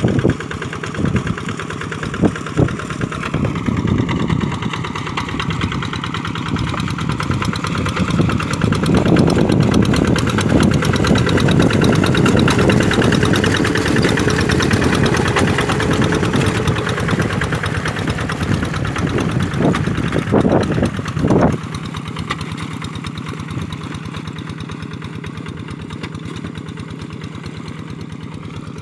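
Kubota RD85 single-cylinder diesel engine of a two-wheel hand tractor running steadily under load in a flooded rice paddy. It grows louder toward the middle, then drops off sharply about three-quarters of the way in.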